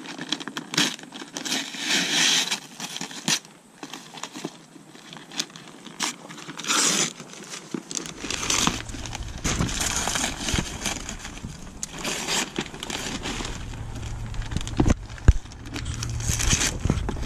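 Brown paper wrapping being torn open and crumpled by hand, in irregular bursts of rustling and tearing.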